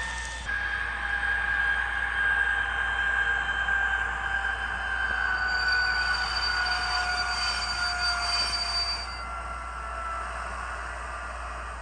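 Sound decoder of a PIKO N-scale BR 185 electric locomotive model playing the locomotive's electric drive whine, several tones slowly gliding down in pitch. A hiss and a high steady squeal join for a few seconds about midway and cut off about nine seconds in.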